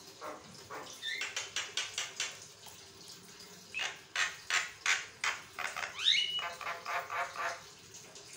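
Javan myna (jalak kebo) chattering in two runs of rapid harsh notes, about five a second, the second run longer and broken about six seconds in by a rising whistle that levels off.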